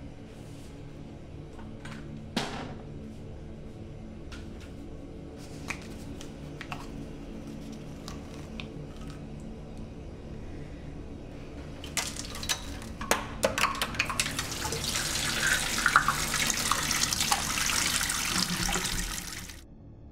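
Liquid running and splashing, mixed with small clicks and knocks. It starts about twelve seconds in, grows louder and cuts off abruptly just before the end. Before it there is a low steady hum with a few scattered knocks.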